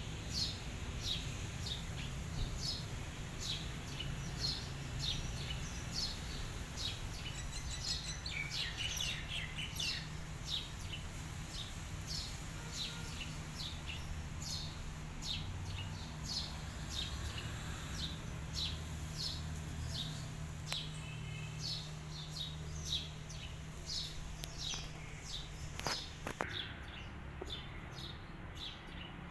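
A small bird chirps repeatedly, about twice a second, over a low steady rumble. About eight seconds in, a second bird joins briefly with a run of falling notes.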